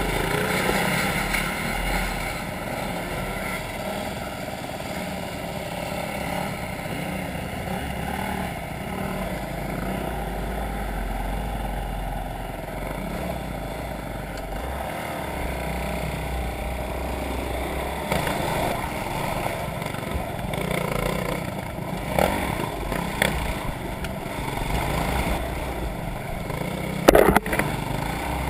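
Trail-riding motorcycle engines running and revving over rough ground, with a couple of sharp knocks near the end.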